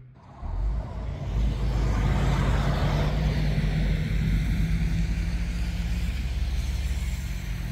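Road traffic going round a roundabout: cars and a lorry driving past, with a steady low engine rumble and tyre noise. The traffic is loudest about two to three seconds in.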